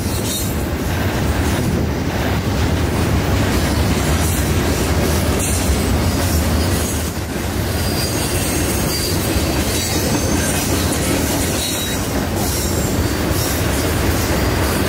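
Double-stack intermodal freight train rolling past: a steady rumble and clatter of steel wheels on the rails under the loaded container well cars, with thin high wheel squeals coming and going.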